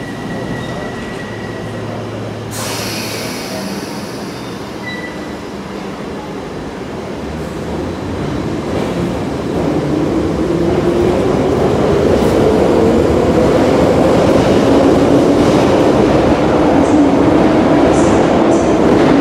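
London Underground Piccadilly line train pulling out of the platform: a steady rumble of wheels and running gear that grows louder from about eight seconds in, with a motor whine rising slowly in pitch as it picks up speed. A brief hiss about two and a half seconds in.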